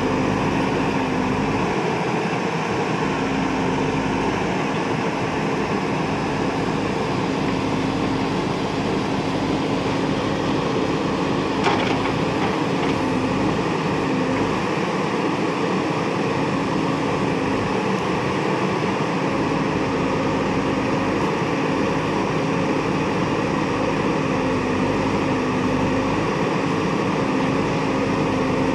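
Diesel engine of a JCB backhoe loader running steadily, its pitch wavering slightly as the backhoe digs and swings loads, with a single sharp knock about twelve seconds in.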